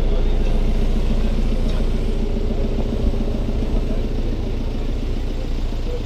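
Engine running steadily at idle close by, a low, even hum.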